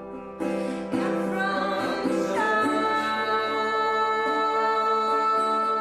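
Background music: a song with singing over plucked strings, settling into one long held note about halfway through.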